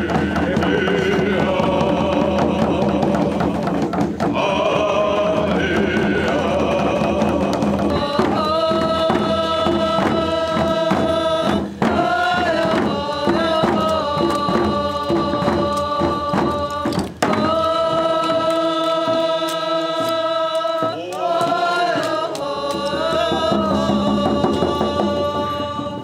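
Voices singing a chant-like song in long held notes, with sliding pitch changes about twelve and again about twenty-one seconds in.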